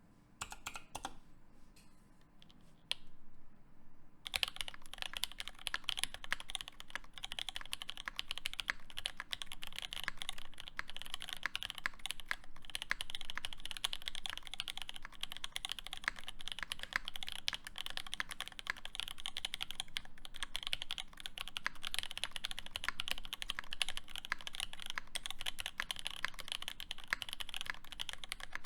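Typing on a custom mechanical keyboard, a SQUARE.X with lubed Alpaca linear switches on an aluminium plate and GMK keycaps. A few single keystrokes come first, then steady fast typing starts about four seconds in.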